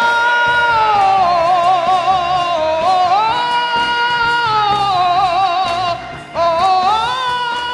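Gospel singing: a high solo voice holds long notes with wide vibrato, sliding up into each phrase, with a brief break about six seconds in.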